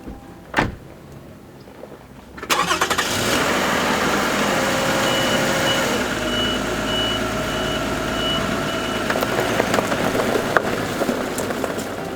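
A car's engine starting and running steadily. There is a thump just before it, and a repeating high beep sounds for a few seconds in the middle.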